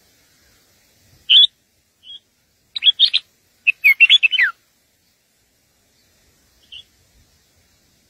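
Red-whiskered bulbuls chirping: one sharp high chirp, then two quick clusters of short chirps in the middle, the last note sliding down, and a faint chirp near the end.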